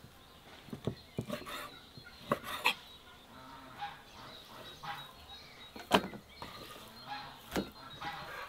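Scattered sharp knocks and taps of raw beef being cut and handled on a wooden board and dropped into an enamel bowl, the loudest about six seconds in, with chickens clucking now and then.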